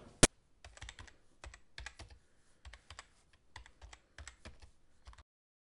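Computer keyboard typing: one loud key click, then irregular key clicks for about five seconds that cut off abruptly.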